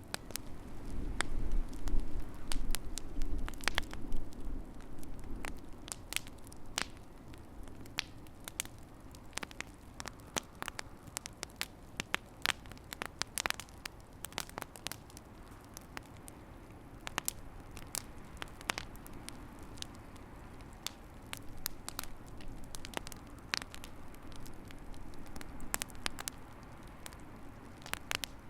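Wood fire in a fireplace crackling, with frequent irregular sharp pops and snaps over a low rumble of burning. The rumble swells louder for the first few seconds, then settles.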